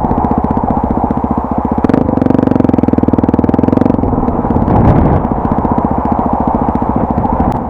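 Honda Tornado 250 single-cylinder four-stroke engine running under throttle while riding. It pulls harder for about two seconds in the middle, and there are a couple of sharp knocks.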